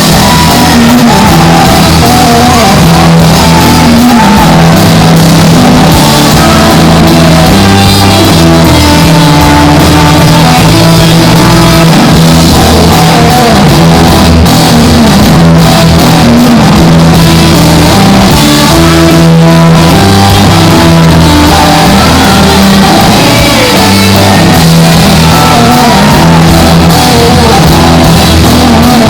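Loud live rock music played by a band: electric guitar, bass and drums with shouted, distorted singing.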